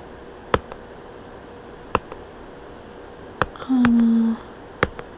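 Computer mouse clicking, four sharp clicks about a second and a half apart, as keys are pressed on an on-screen calculator. A short hummed voice sound comes about four seconds in.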